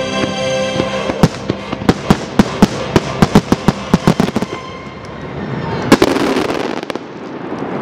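The show's soundtrack music ends as a rapid finale volley of firework bangs goes off, several a second. A wash of crowd noise then swells, broken by one last loud bang about six seconds in.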